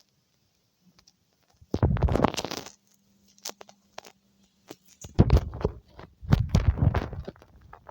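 A person coughing: one rough cough lasting about a second, about two seconds in, then a longer fit of several coughs starting about five seconds in.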